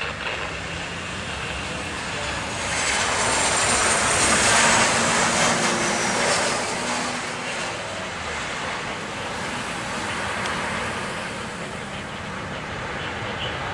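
Boeing 737-900ER jet airliner landing: its jet engine noise swells about three seconds in and peaks with a high whine falling in pitch, then settles to a steady rumble.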